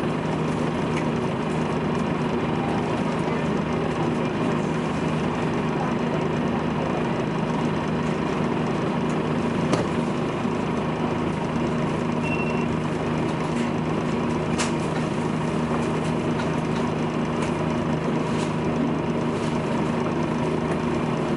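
Volvo B10BLE bus's rear-mounted six-cylinder diesel engine idling steadily with the bus standing still, heard from inside the bus, with a constant low hum and a few faint clicks.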